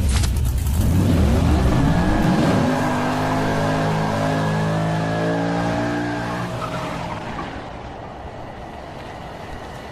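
Car engine rising in pitch as it revs up, holding a steady note, then fading away over the last few seconds.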